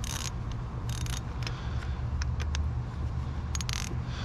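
Scattered sharp clicks and a few short scrapes of hand tools working in an engine's spark plug well, over a steady low hum.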